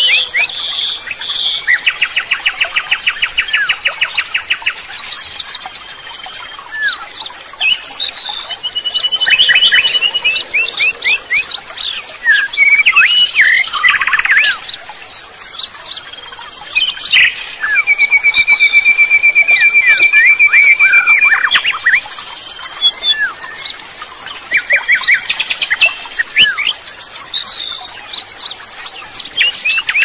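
Several songbirds calling and singing over one another: dense chirps, whistles and squawks with rapid trills, including one long, even trill of about four seconds a little past the middle.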